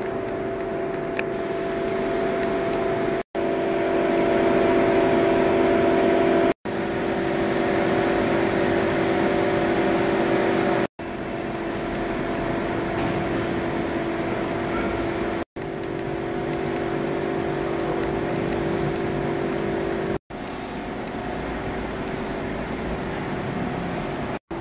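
Steady subway-station background noise: a low rumble with a constant hum held at a few fixed pitches, dropping out for an instant every three to five seconds.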